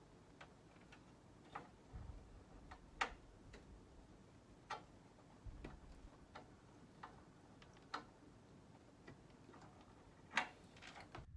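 Faint, irregular light clicks and ticks from handling PC power-supply cables and plastic connectors inside a computer case, with two soft low thumps; the sharpest click comes near the end.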